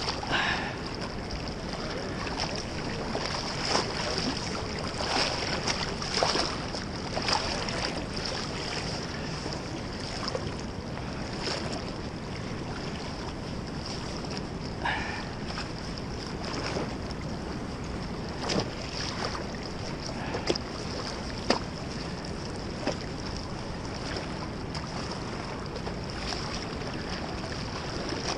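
Wind on the microphone over the rush of a fast, swollen river, with scattered short knocks and rustles.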